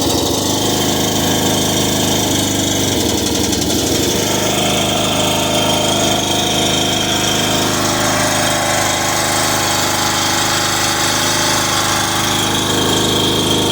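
Riding lawn mower's small gasoline engine running steadily just after a jump-started start. It will not idle all the way down, which the owner puts down to a carburetor that probably needs cleaning.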